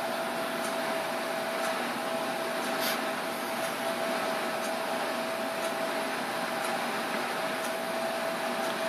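Steady room noise: an even hiss with a constant mid-pitched hum and faint high ticks about once a second.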